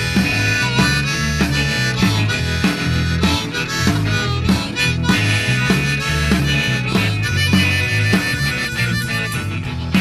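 Instrumental break of a blues-tinged rock song: a harmonica plays the lead over a steady drum beat, bass and rhythm guitar.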